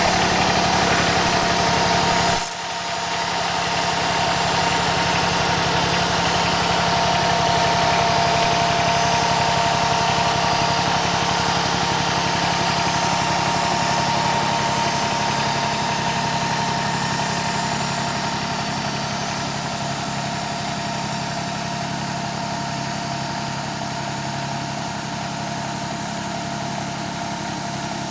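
Kubota BX compact tractor's three-cylinder diesel engine running steadily, with a steady whine over it. About two and a half seconds in the sound suddenly drops and loses its low rumble, then it fades slowly as the tractor drives away.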